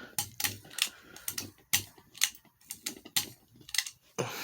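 About a dozen quick, irregular clicks, likely the ceiling fan's pull-chain and speed switch being worked to change its speed.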